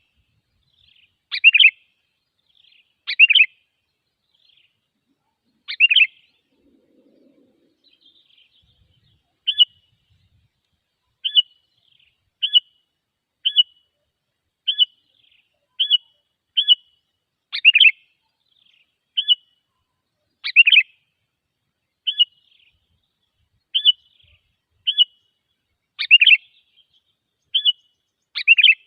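Sooty-headed bulbul (kutilang) calls from a bird-luring recording: loud, short, downward-sweeping calls every few seconds. From about a third of the way in, quick clipped calls also repeat about once a second.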